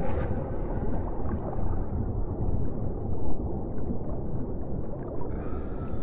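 Low, steady underwater water rumble with gurgling. About five seconds in, a brighter hiss with faint steady tones joins it.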